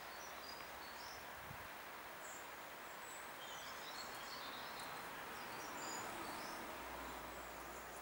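Small garden birds giving short, high chirps here and there, most of them in the middle, over a steady outdoor background hiss.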